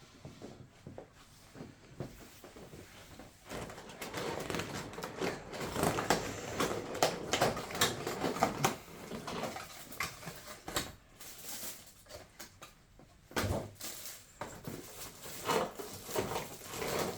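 Rustling of packaging and light clicks and knocks as a boxed model airplane is unpacked and handled. The rustling is densest in the middle, with a few sharper knocks later on.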